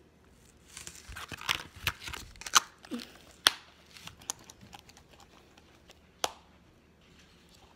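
Small plastic slime tubs being handled and opened: a run of sharp clicks and crinkles for a few seconds, then one more click near the end.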